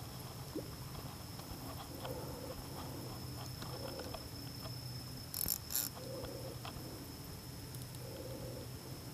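An animal call repeating about every two seconds over a steady high tone and a low hum, with two sharp clicks a little past the middle.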